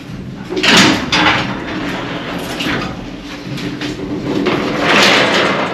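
Steel mesh gates of a mine-shaft hoist cage being unlatched and slid open, with several loud rattling metal clatters; the longest and loudest comes near the end.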